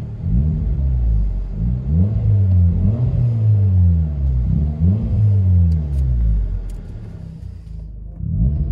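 2008 Kia Spectra EX's 2.0-litre four-cylinder, heard from inside the cabin, revved in Park in about five quick blips through a muffler-delete exhaust that keeps the factory resonator. Near the end it drops back toward idle.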